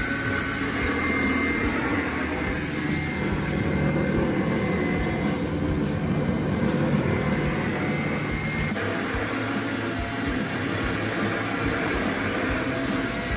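A 6,000-lb electric winch on a 1946 Willys CJ2A Jeep runs steadily under load, its motor and gears whirring as it pulls the Jeep, whose engine is off. The tone shifts slightly about nine seconds in.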